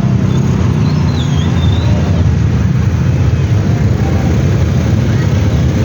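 Steady, loud rumble of road traffic, with a heavy vehicle's engine close by and faint voices in the background; no horn is sounded.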